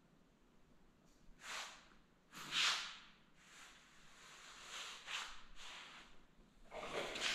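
Soft scuffs and swishes from someone walking across a hardwood floor: about six short ones, unevenly spaced, the loudest about two and a half seconds in.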